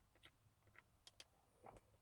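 Near silence with a few faint, scattered plastic clicks and light knocks, one a little stronger near the end, as the airbag's wiring plug is worked loose by hand.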